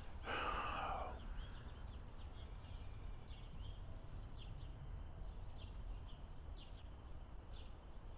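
Small birds chirping in short, scattered calls over a low, steady outdoor rumble, with a brief louder noisy sound about half a second in.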